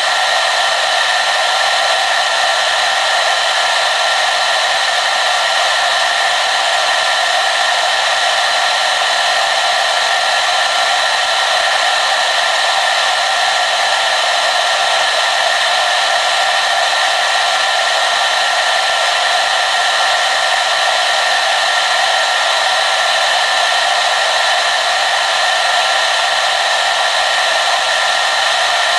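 Hair dryer running steadily: an even rush of blown air with a few steady whining tones on top and little low rumble, unchanging throughout.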